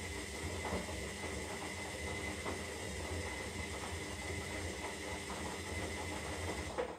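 Zanussi Lindo 300 washing machine running its synthetic wash: a steady motor hum with a thin high whine and scattered light knocks from the drum. The running stops suddenly just before the end.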